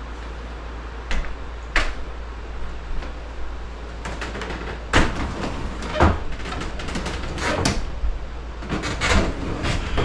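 Irregular knocks, clunks and scrapes of objects being handled and set down, over a steady low hum.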